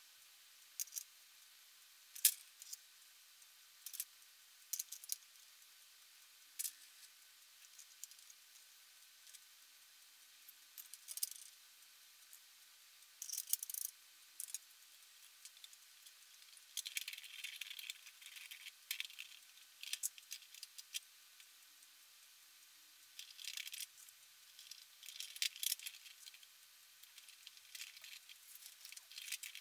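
Faint, sped-up clicking and rattling of small plastic clock-kit gears and parts being handled and pressed onto a clear plastic frame: scattered single clicks, then denser bursts of clatter in the second half.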